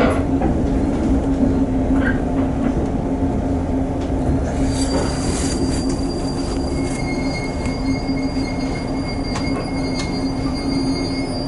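Electric commuter train running, heard from inside the carriage: a steady low hum over wheel rumble as it slows into a station. About halfway through, thin high-pitched squeals from the braking wheels come in and hold steady.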